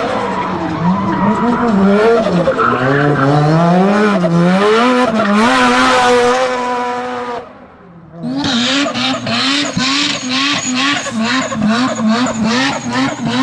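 Rotary engines of drift cars at full throttle. First a Mazda RX-7's rotary revs up and down through a drift, with tyres squealing. After a brief dip about halfway in, a second rotary-powered car drifts with its revs pulsing quickly, about twice a second.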